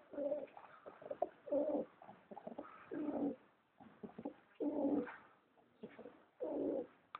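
Domestic pigeons cooing: about five low coos, each roughly half a second long and spaced about a second and a half apart, with light short clicks between them.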